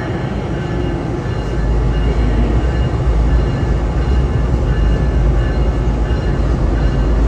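GE P42DC locomotive's V16 diesel engine running during start-up: a steady low rumble that grows louder about a second and a half in.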